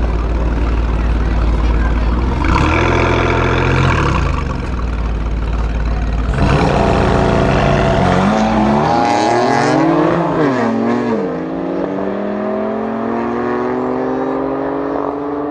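Alfa Romeo Giulia Quadrifoglio twin-turbo V6 with a Ragazzon exhaust and a BMW M3 F80 Competition revving side by side on a drag-strip start line. About eight or nine seconds in they launch and accelerate hard, engine pitch rising and dipping at each gear change as they pull away.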